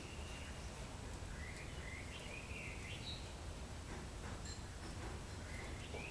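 Parrot chirping: a string of short rising chirps starting about a second in, and another pair near the end, over a steady low background hum.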